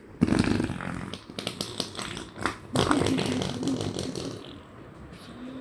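A child blowing raspberries with his mouth pressed on bare belly skin: a loud spluttering burst near the start, then crackly splutters and a buzzing hum into the skin that fades toward the end.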